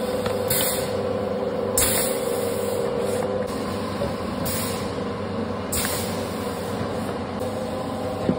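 Carton packaging and filling machinery running with a steady hum and a few held tones. A short hiss of compressed air is released about every second and a quarter as the pneumatic cylinders cycle.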